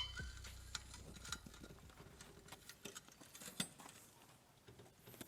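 Faint scattered clicks and light taps, irregular and a few a second at most, over a quiet background. A low drone cuts off just after the start.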